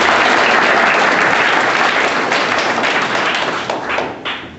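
Audience applauding steadily, then dying away near the end into a few last claps.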